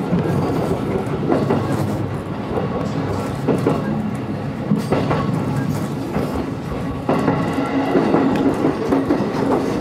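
Electric train running, heard from inside the front car: a steady rumble of wheels on rail with irregular clacks as the wheels pass over rail joints and points.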